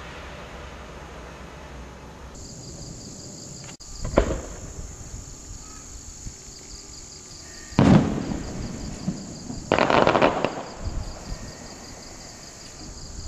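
5-inch golden crossette aerial shell: a dull thump of the lift about four seconds in, a loud bang as the shell breaks near eight seconds, then a quick rattle of pops around ten seconds as the comets split. Crickets chirp steadily in the background.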